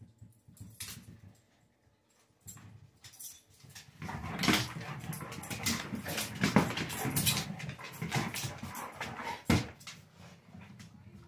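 Black Labrador batting a Kong Wobbler, a weighted plastic treat-dispensing toy, around a wooden floor: irregular knocks and clatter of the toy tipping and rocking, with the dog's claws clicking. Sparse at first, then busier and louder about four seconds in.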